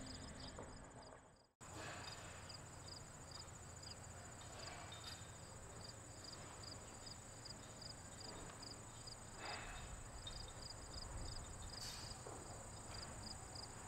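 Faint insect chorus: a steady high trill with a quicker chirp repeating about three times a second. It drops out for a moment about a second and a half in, then carries on.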